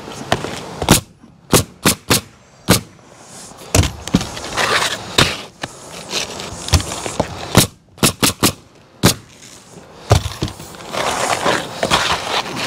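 Pneumatic roofing nailer driving nails into asphalt shingles: about a dozen sharp shots at uneven spacing, some in quick runs of two or three. Between them comes the scraping of shingles being slid into place on the roof.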